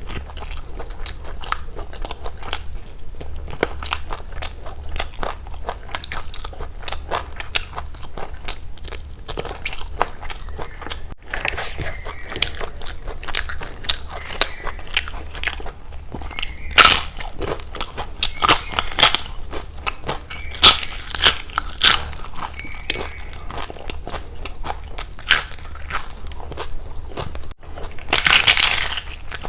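Close-miked eating of chicken biryani and egg curry: wet chewing with many sharp crunches and crackles, the loudest crunches coming in the second half and a dense crunching burst near the end.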